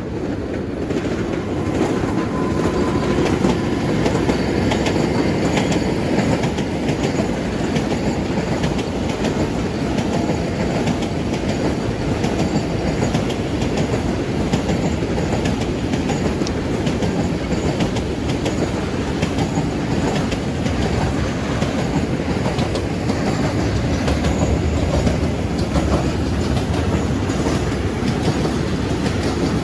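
Siemens Eurosprinter electric locomotive passing, followed by a long intermodal freight train of container and tank-container wagons rolling by: a steady rumble with rapid clicks of wheels over the rails. It gets louder about two seconds in.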